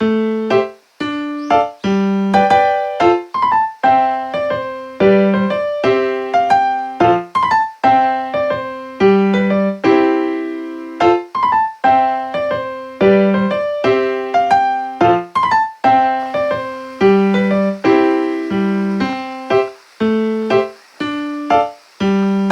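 Background piano music: a run of struck notes, each fading after it is played.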